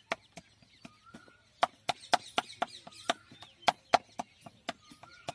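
A flat hand paddle slapping the wall of an unfired clay pot, beating it into shape. After a short pause about a second in, the strikes settle into a steady run of about four a second.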